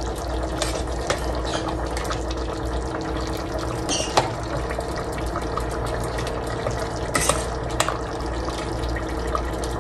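Pork menudo simmering in a stainless steel pot while a metal ladle stirs it, with a few clinks and scrapes of the ladle against the pot. A steady low hum runs underneath.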